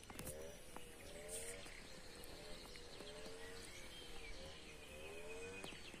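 Faint animal calls: short pitched calls repeating about once a second over a quiet outdoor background.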